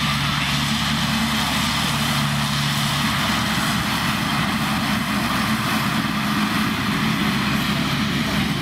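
Massey Ferguson tractor working with Fella front and rear disc mowers cutting grass: a steady engine drone over the continuous whir of the mower discs. The engine's tone fades about three seconds in, while the mower noise runs on.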